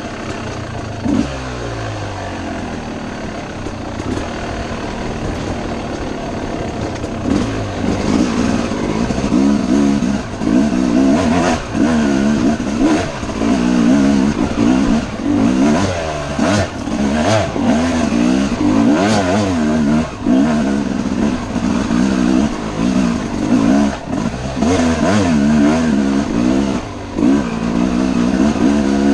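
Yamaha YZ250 two-stroke dirt bike engine revving up and dropping off again and again as the throttle is opened and chopped. It is steadier for the first several seconds, then louder, with quick surges and short breaks from about eight seconds in.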